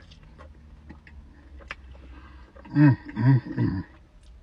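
A man chewing a crunchy waffle fry, with small wet mouth clicks, and about three seconds in a voiced "mmm" of enjoyment in three short pulses.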